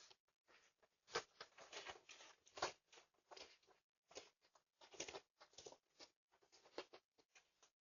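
Faint, irregular scuffs, clicks and rustles of a deer moving about close to a doorbell camera's microphone.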